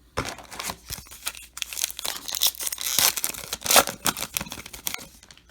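A baseball card pack's wrapper being torn open and crinkled: dense crackling rustles that stop about five seconds in.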